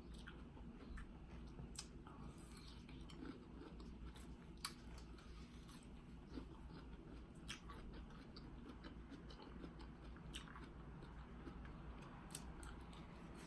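Faint chewing of cantaloupe: soft, scattered wet mouth clicks and smacks over a low steady hum.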